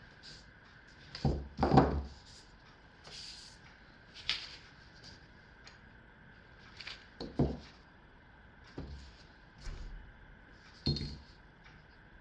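Small parts and tools being moved and set down on a hard work surface: scattered knocks and clinks, about seven in all, the loudest a double knock near two seconds in.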